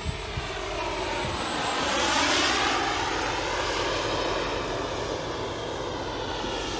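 A model jet turbine in a Sebart Avanti S radio-controlled jet running in flight, a steady rushing whine that swells as the jet passes, loudest about two seconds in, then eases off a little.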